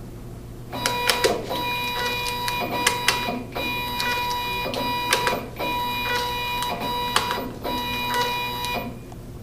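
Zebra R110Xi4 thermal RFID label printer running a test print: its feed mechanism gives a steady whine with clicks. It starts about a second in, pauses briefly a few times, and stops near the end.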